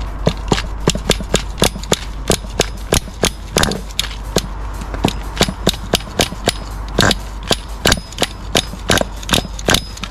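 HPI G3.0 nitro engine of an RC car being started, giving a fast uneven run of sharp pops, about three a second.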